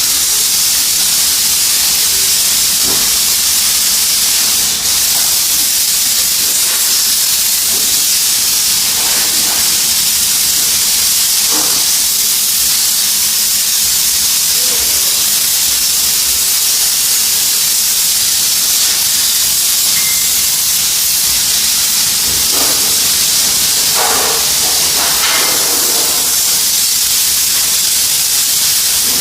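Steam cleaner jetting steam from its nozzle, a loud, steady hiss.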